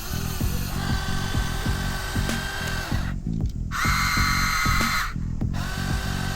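Background music with a steady beat, over a high electric motor whine that starts abruptly about halfway through and runs for about a second before cutting off.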